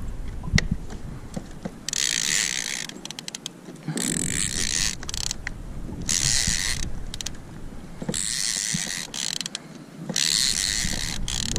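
Fishing reel ratcheting in five buzzing bursts of about a second each, roughly two seconds apart, with light ticks between them.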